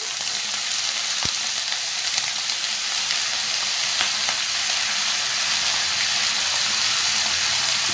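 Hot oil sizzling steadily in a kadhai as chopped brinjal fries with a tempering of mustard seeds, cumin, dal, curry leaves and green chillies, with one light tap about a second in.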